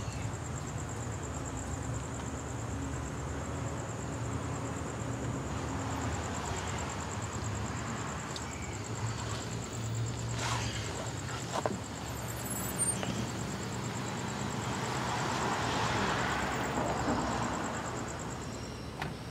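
Outdoor night ambience: a steady low hum of distant traffic under a thin, steady high insect trill. A vehicle swells past and fades about three quarters of the way in, and a few faint clicks fall just before it.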